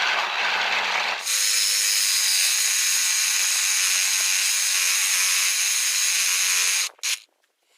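Handheld power tool working on a scrap electric motor. It starts with a harsh, rasping cutting noise for about a second, then settles into a steady whine for about five seconds and stops, with one short burst just after.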